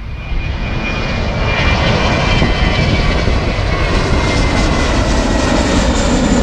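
Jet airliner taking off and climbing out at close range, its engines at takeoff power: a loud, steady roar with a high whine that slowly falls in pitch.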